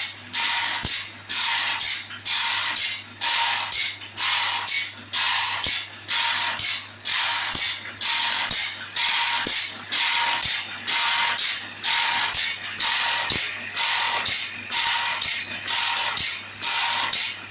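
Automatic band saw sharpener grinding a sawmill band saw blade tooth by tooth: a grinding rasp about once a second, one pass of the abrasive wheel per tooth, each cycle with a short ring and a click as the machine works on, over a steady motor hum.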